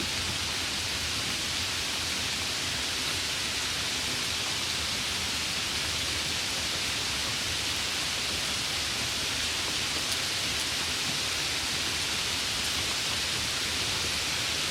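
Steady rainfall, an even hiss that does not change.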